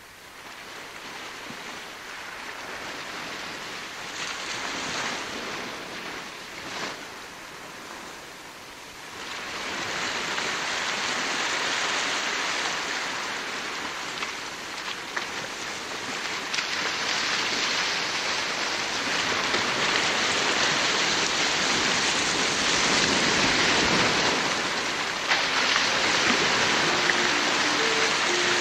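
Steady rushing noise like ocean surf, fading in from quiet and swelling louder, with a marked rise about nine seconds in.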